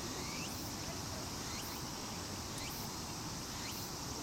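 Insects droning steadily in summer vegetation, with a short sweeping chirp repeating about once a second over the drone.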